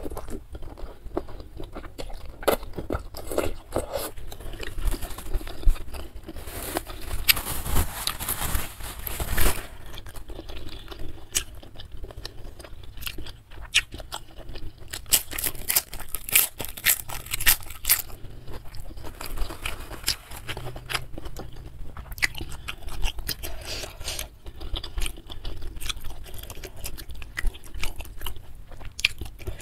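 Close-miked eating sounds: chewing and biting instant ramen noodles, egg and seaweed, with many small crunchy, irregular mouth clicks and louder noisy stretches twice.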